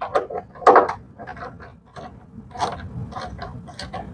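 Hand screwdriver backing a screw out of a plastic trim cover: a run of irregular sharp clicks and small scrapes, the loudest about a second in.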